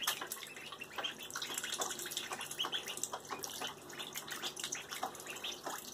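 Ducklings paddling and dabbling in shallow water in a plastic tub as they snatch up minnows: light, irregular splashing and water sloshing.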